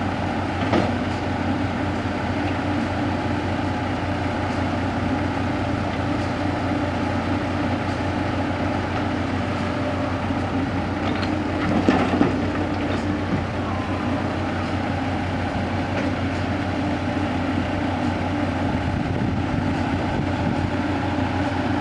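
Heavy diesel earthmoving machinery running steadily under load, with a couple of short knocks, about a second in and again near the middle.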